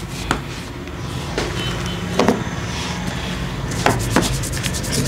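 Hands massaging a forearm and hand, skin rubbing on skin, with several sharp cracks scattered through. Near the end comes a fast, even run of light taps.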